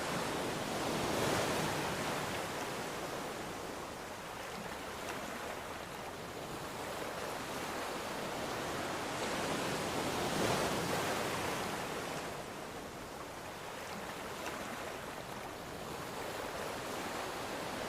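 Ocean waves breaking and washing on a shore, a steady surf hiss that swells with a wave about a second in and again at about ten seconds.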